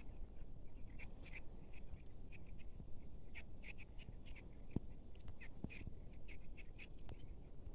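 Small birds chirping: short, sharp calls repeat irregularly, at times several a second, over a low steady rumble of outdoor wind noise.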